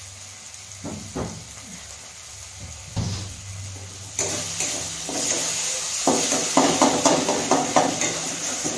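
Prawn masala frying in a steel kadai, a sizzle that swells about four seconds in. Over the last few seconds a spatula stirs and scrapes the pan in quick strokes, about three a second. Two short knocks come in the first three seconds.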